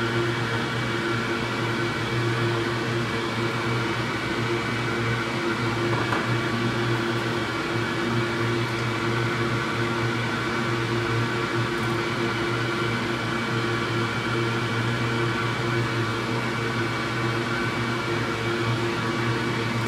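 Steady mechanical hum with several constant tones over an even hiss, unchanging throughout.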